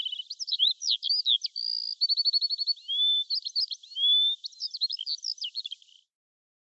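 A bird singing a fast, varied song of quick chirps, a rapid trill and short rising whistles, which stops near the end.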